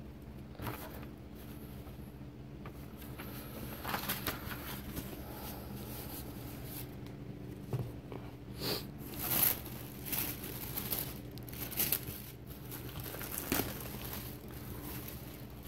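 Paper and plastic packing in a cardboard box being handled, rustling and crinkling in irregular bursts that are loudest about two-thirds of the way through, over a faint steady hum.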